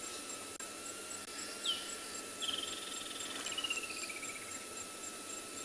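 Insects chirring steadily, with a bird calling over them: a short falling note about a second and a half in, then a fast trill that slides down in pitch for about a second and a half.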